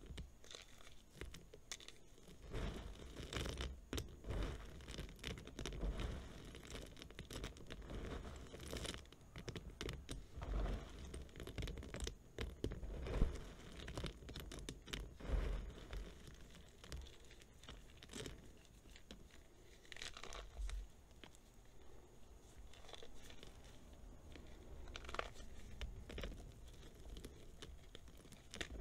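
Dried reformed gym chalk crushed and crumbled between the fingers: continuous irregular dry crunching and crackling, with a few louder cracks in the middle.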